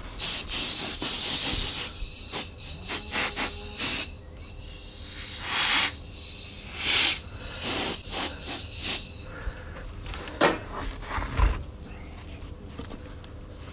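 Compressed-air blow gun blowing into a greensand mould cavity in a series of short hissing bursts, the first about two seconds long, clearing loose sand after the pattern has been drawn. A couple of knocks near the end.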